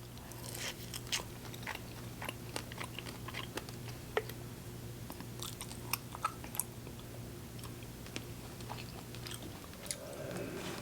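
A person chewing and biting into chicken wings close to the microphone, with many small wet clicks and crunches.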